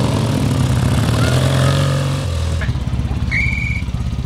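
Motorcycle-and-sidecar engines running at low speed, a steady low drone that gives way about two seconds in to a quicker pulsing engine beat. A short high steady tone sounds once a little after three seconds.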